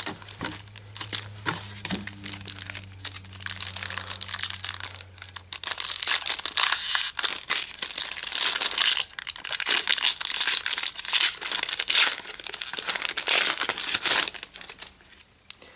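Foil wrapper of a trading card pack crinkling and being torn open by hand, a dense crackle that gets louder and busier in the middle and dies away near the end.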